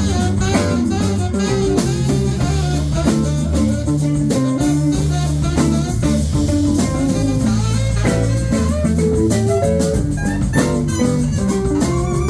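A live band playing, with guitar lines over a drum kit and a steady beat.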